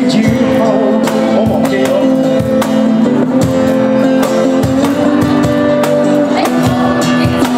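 Live amplified acoustic band: strummed acoustic guitar and a male singer over a steady beat of a hand-played box drum and cymbal, about two hits a second.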